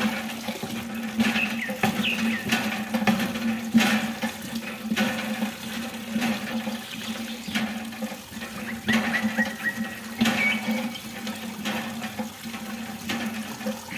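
A thin stream of water pours from a clear plastic tube into a small pool of water, splashing steadily.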